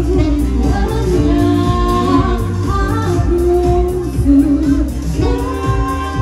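A woman singing a pop song live into a microphone over amplified backing music with a strong bass line and saxophone. A long held note comes in about five seconds in.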